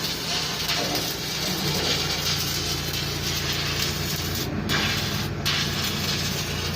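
CO2 MIG welding arc crackling and sizzling steadily over a low hum. The sizzle breaks off for a moment twice, about two-thirds of the way in.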